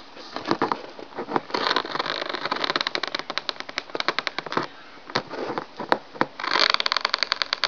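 Cat chewing and tearing at the ragged edge of a cardboard box: rapid crackling clicks and scrapes of cardboard, with a denser, louder run near the end.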